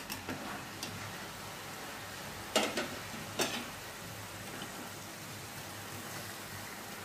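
Liver masala sizzling gently in an open pot after steaming. Sharp metal clinks come as the steel plate lid is lifted off with pot tongs and set down, the two loudest about two and a half and three and a half seconds in.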